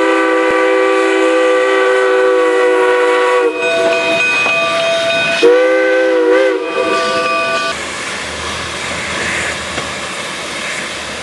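Steam locomotive chime whistle blowing a long chord, then a second blast whose pitch bends as the cord is worked, with steam and exhaust noise between. After about eight seconds it gives way to a steady hiss of steam from the standing locomotive, with a low hum.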